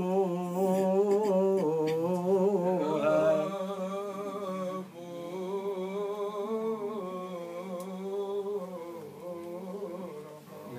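Men's voices chanting a slow, melismatic Coptic liturgical response, long held notes that waver up and down in pitch over a steady lower note, growing quieter about halfway through.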